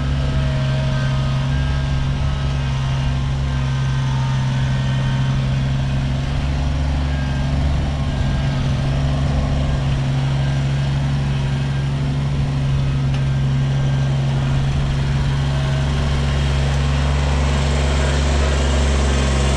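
Kubota BX23S tractor-loader-backhoe's three-cylinder diesel engine running at a steady speed.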